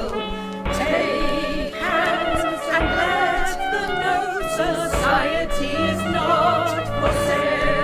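Protest song: a woman sings the lead with wavering held notes, with backing vocals and instrumental accompaniment, and a deep beat about every two seconds.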